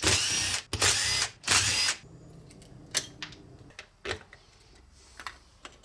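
A handheld power tool, such as a drill or driver, run in three short bursts of about half a second each in the first two seconds, then a few light clicks.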